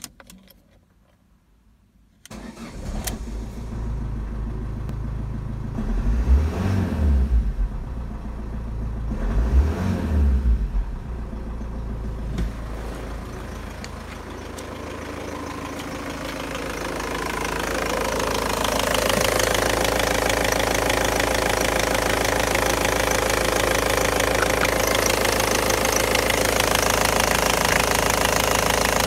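Ford Focus 1.8 turbodiesel (Endura-DI) engine starting about two seconds in and settling to an idle, revved briefly twice. Later it is heard up close in the engine bay, a steady idle with a fast diesel knock.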